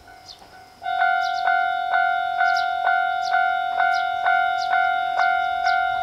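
Japanese railway level-crossing warning bell starting up just under a second in: a loud ringing tone struck about twice a second and kept up steadily, the signal that a train is approaching and the barriers are coming down.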